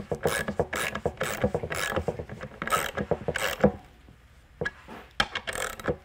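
Socket ratchet clicking in quick runs as it is swung back and forth, driving a threaded insert into a wooden board on a hex cap screw. About two-thirds of the way through, the clicking thins to a few scattered clicks.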